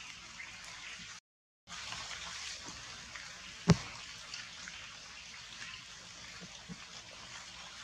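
Rain pattering and dripping on forest leaves: a steady hiss scattered with small drips. A single sharp click about halfway through is the loudest sound, and the sound cuts out for about half a second a little over a second in.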